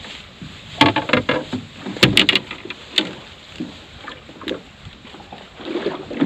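Sharp clicks and knocks of fishing gear being handled in a small boat as a sand dab is lifted aboard on the line, in a few quick clusters, loudest with a dull thump about two seconds in, over a steady low hiss of wind and sea.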